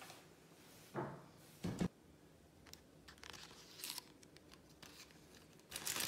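Printed iron-on clothing label peeled off its backing strip by hand: short crackly peeling and rustling, twice, after a couple of soft handling thumps about a second in.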